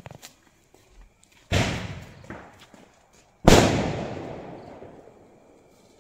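Two firecracker bangs about two seconds apart, the second louder, each trailing off in a fading echo.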